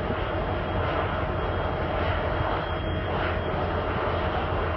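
Steady rumbling roar of a moving train heard together with wind and road noise from filming it off a moving vehicle, through a cell phone microphone; a faint steady tone runs through it.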